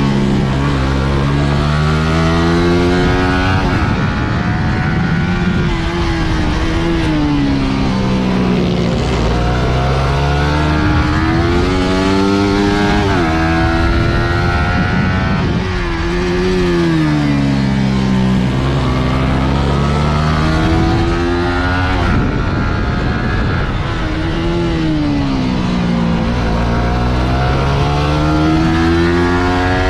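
Suzuki GSX-R150's single-cylinder four-stroke engine at racing revs. Its pitch climbs again and again under acceleration and drops sharply on each change or slowdown, over a steady rush of noise.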